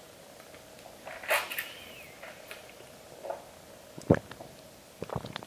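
A woman's short, high pained whimper and mouth breathing as she reels from a bite of extremely hot sauce, with a soft knock about four seconds in and a few small mouth clicks near the end.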